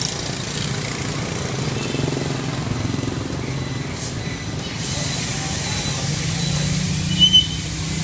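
Street traffic noise: motorbike and car engines running past in a steady low hum. A short high-pitched double sound stands out about seven seconds in.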